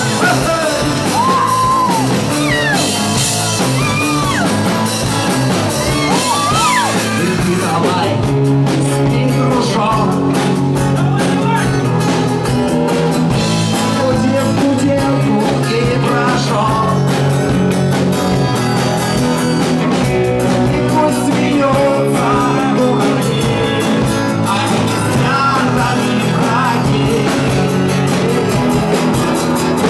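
A rock band playing live: a man singing over electric guitars, bass guitar and drums. The sound gets fuller and busier about eight seconds in.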